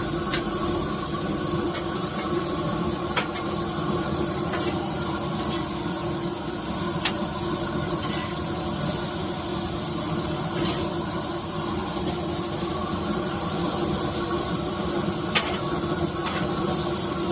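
Steady sizzle and hiss of food frying, with a few sharp clicks scattered through it.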